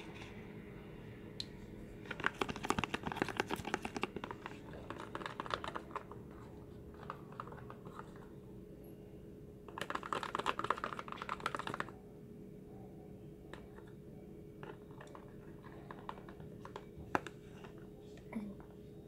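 Plastic containers being handled: two spells of rapid clicking and crinkling, one about two seconds in lasting several seconds and a shorter one about ten seconds in, then a few scattered knocks.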